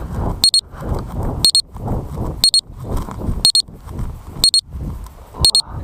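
A high electronic beeper sounding once a second, each beep a quick double pulse, over a steady low rushing noise. It fits an alarm from the RC gear, such as a lost-model buzzer or a transmitter warning.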